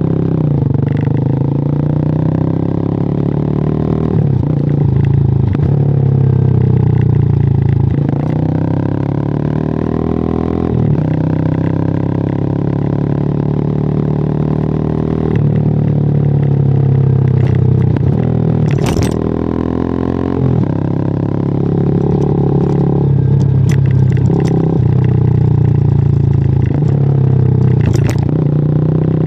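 WMOTO Hawk 200i motorcycle engine under way, its pitch climbing as it pulls through the gears and dropping back at each shift, several times over. A few short knocks come through near the middle and near the end.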